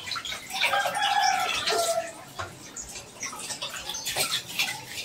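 Duck eggs being washed by hand under a running kitchen tap: water splashing into a steel pot, with light clicks of eggs and metal. A short pitched call sounds about a second in.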